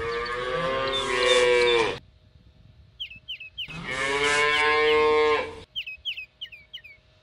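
Cattle mooing: two long moos about a second and a half apart, with short high chirps between them and after them.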